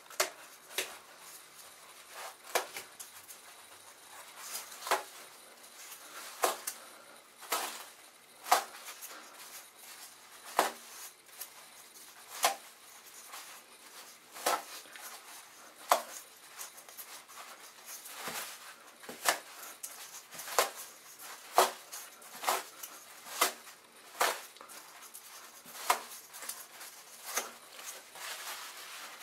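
Toilet paper being torn and handled: short, sharp rips come about once a second at irregular gaps as sheets are pulled off the roll.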